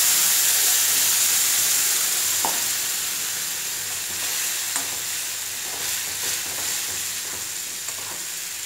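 Coconut chutney paste sizzling in hot tempering oil, with mustard seeds and curry leaves, in a metal kadai. The hiss slowly dies down as a spoon stirs it, and the spoon clicks lightly against the pan now and then.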